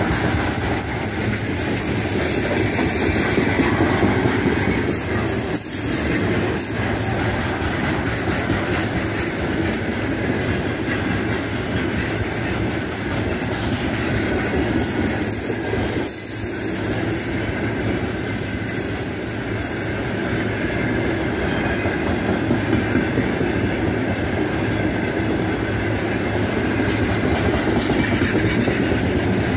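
Heavily loaded freight train of open gondola wagons rolling past close by: a steady rumble and clatter of the wagons' wheels running over the rails.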